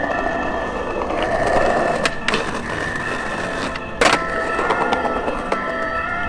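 Skateboard wheels rolling on concrete paving, with two light clacks about two seconds in and a loud, sharp board impact about four seconds in.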